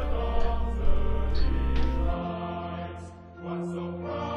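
Background music with sung, choir-like voices; the bass drops out about halfway through and the music thins.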